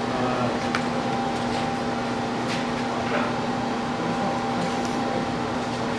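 Steady mechanical hum of air handling, holding two constant tones, with a few faint light clicks.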